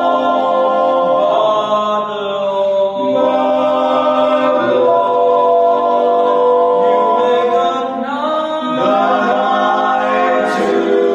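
Male barbershop quartet singing a minor-key tag a cappella: four voices in close harmony holding sustained chords that shift several times.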